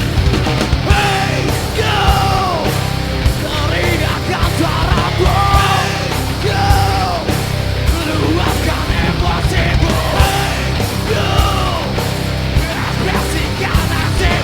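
Heavy rock band playing loudly: electric guitars and drums under a yelled, sung vocal line.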